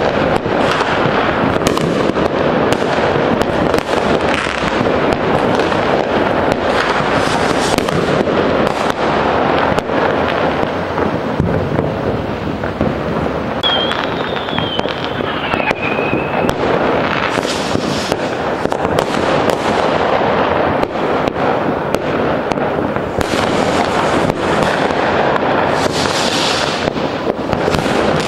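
Many fireworks and firecrackers going off all around at once: a continuous din of bangs and crackle, with a whistle that falls in pitch about halfway through.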